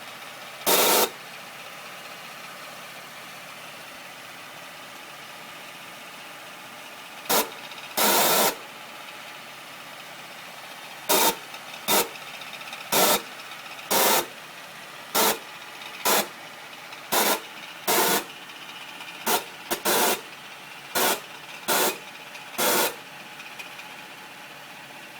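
A 2009 Acura MDX making a strange noise after an A123 service: short, loud noisy bursts, each under half a second, over a steady low running sound. The bursts come twice at the start, two more around 7 to 8 seconds in, then roughly once a second in the second half, at uneven intervals.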